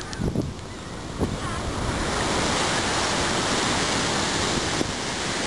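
Ocean surf washing in: a rush of noise that builds a second or two in, then holds steady.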